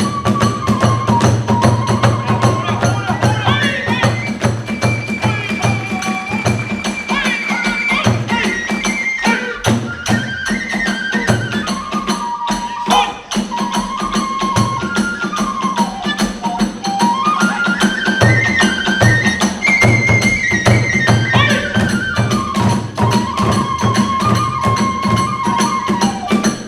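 Kagura hayashi ensemble playing fast: a transverse bamboo flute carries a wavering, sliding melody over rapid taiko drum strokes and jangling hand cymbals.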